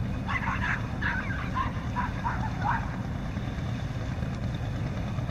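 A dog barking several times in quick succession for about two and a half seconds, starting a moment in, over a steady low rumble.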